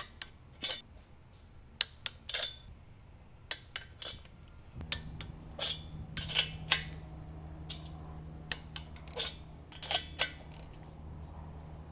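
Sharp metallic clicks and clinks of a socket wrench with an extension and spark plug socket being fitted onto and turned on spark plugs in the cylinder heads of a Socata TB20's six-cylinder aircraft engine, some with a short ringing note. A steady low hum comes in about halfway through.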